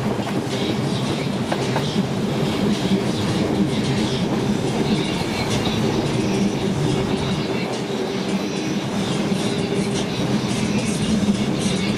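ALe 801/940 'Fanta' electric railcar running at speed: a steady hum from the running gear over continuous wheel-on-rail clatter and rumble.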